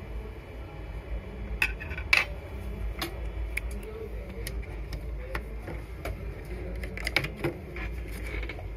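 Scattered small clicks and taps of hands and tools handling a desktop motherboard on a workbench, over a steady low hum. The taps bunch up twice, a couple of seconds in and again near the end.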